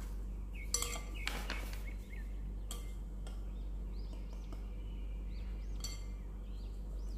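Glass and metal kitchenware clinking as powdered sugar is tipped from a small glass bowl into a metal mesh sieve over a glass mixing bowl: about four sharp clinks, the first and last ringing briefly. Faint bird chirps repeat in the background over a steady low hum.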